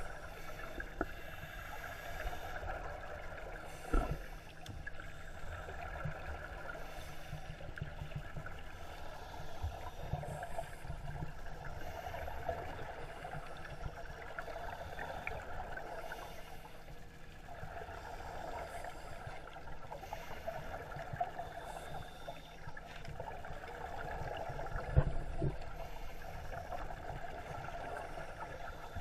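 Muffled underwater sound of divers breathing through scuba regulators, their exhaled bubbles bubbling and crackling steadily, with a thump a few seconds in and a louder one near the end.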